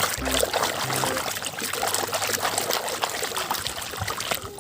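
Running water splashing over a muddy plastic toy car as it is washed clean, with many small clicks throughout.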